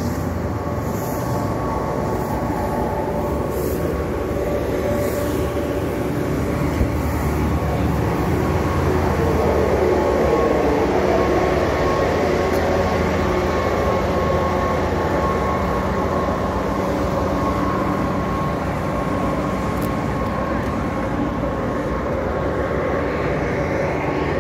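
Steady drone of a road vehicle heard from on board while it drives: engine hum with road noise, swelling a little around the middle.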